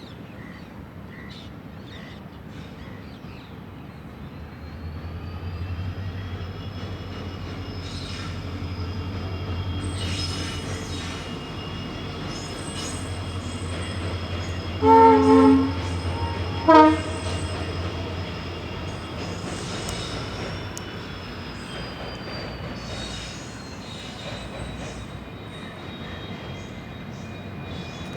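WDP4D diesel locomotive passing, its EMD 710 two-stroke engine giving a deep hum that swells and then fades, with a high steady whine above it and clicks from the wheels over the track. About halfway through the horn gives a two-part blast, then a short toot a second later.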